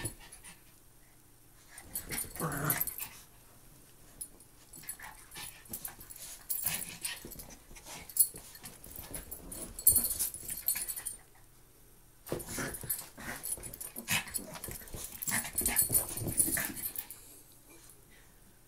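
Two Maltese dogs play-fighting, with growls and scuffling in bouts broken by short pauses, and quieter near the end.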